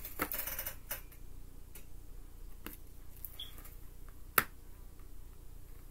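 Tarot cards being handled on a cloth-covered table: a brief rustle of cards moving in the first second, then a few separate sharp taps and clicks, the loudest about four and a half seconds in.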